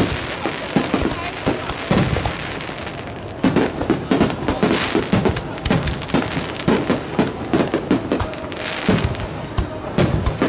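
Aerial firework shells bursting in a rapid, dense barrage of bangs and crackles. The barrage eases for a moment about two to three seconds in, then picks up again.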